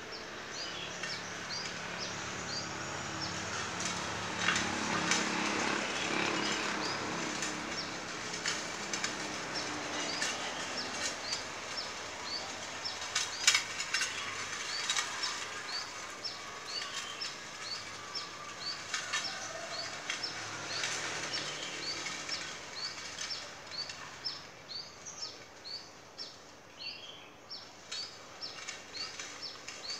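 Small electric motor of a homemade three-wheel tractor humming faintly as it drives over a dirt path, with a few sharp knocks about halfway through. Short high chirps repeat about twice a second throughout.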